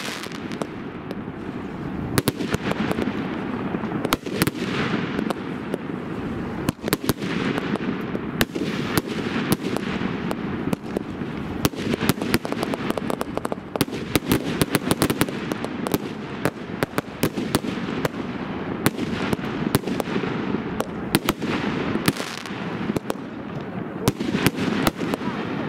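Aerial firework shells bursting in the sky: a rapid, continuous series of sharp bangs, many coming close together, over a steady low rumble.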